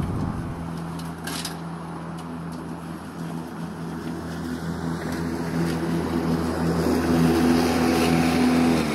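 Makita DLM460 cordless lawn mower running while cutting grass: a steady electric-motor hum with the whirr of the blade, growing louder as the mower comes close, then breaking off just before the end.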